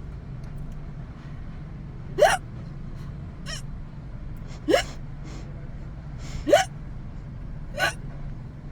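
A woman hiccuping four times, about every two seconds: each a short, sharp 'hic' that jumps up in pitch, from a bout of uncontrollable hiccups.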